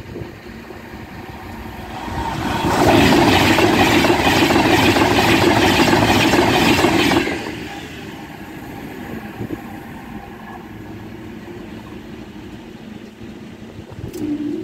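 A train passes the level crossing at speed: its rumble swells about two seconds in, stays loud with a fast rhythmic clatter of wheels for about five seconds, then dies away quickly, leaving a quieter steady background.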